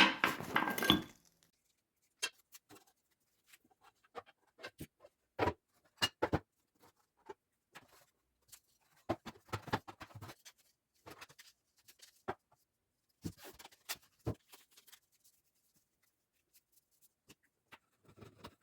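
A short dense clatter in the first second, then scattered light clicks and knocks of objects being handled.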